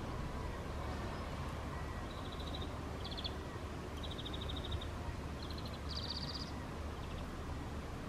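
Small garden songbird calling in short, fast trills of repeated high notes, about six bursts from about two seconds in, one near the end a little higher; under it a steady low rumble.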